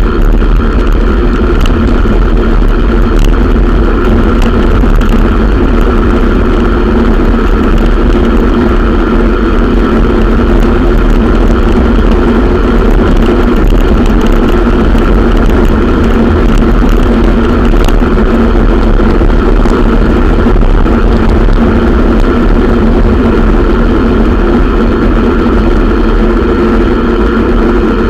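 Steady, loud rush of wind and road noise on a bicycle-mounted camera riding along a paved street, with a constant low rumble and an even hum that does not change.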